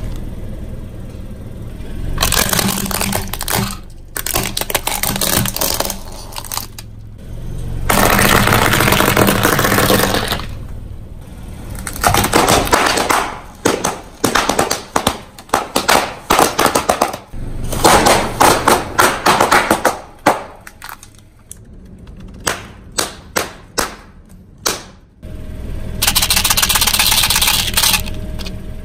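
Crunchy objects being crushed under a car tyre: stretches of crackling and crunching, with runs of sharp cracks and snaps in quick succession through the middle and latter part.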